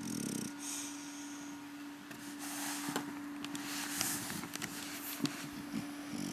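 English Bulldog snoring in its sleep: a short low snort right at the start, then noisy, breathy breaths about two and a half and four seconds in, with small sharp clicks scattered through them.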